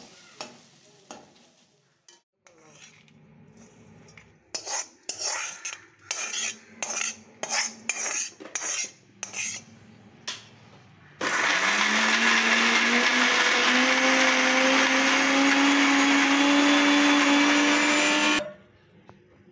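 Spoon clinking and knocking as the cooled fried masala is scraped into a steel mixer-grinder jar. Then the mixer grinder starts suddenly and runs for about seven seconds, grinding the masala without water, its whine rising slightly before it cuts off.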